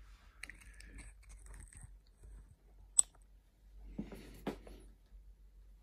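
Handling noises: faint rustling and small clicks and knocks, with one sharp click about three seconds in.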